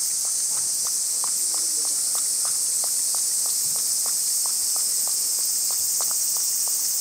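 A cat lapping water from a plastic bucket: quick, even laps at about three to four a second, over a steady high-pitched hiss.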